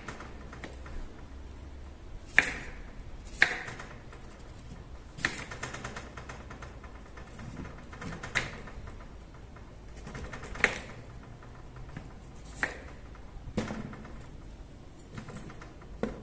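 A series of sharp clicks and knocks of hard objects, about ten, spaced irregularly a second or two apart. A few of them ring briefly.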